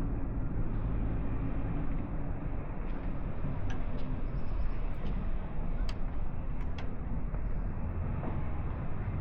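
Steady low rumble of road traffic, with a few faint short ticks about four to seven seconds in.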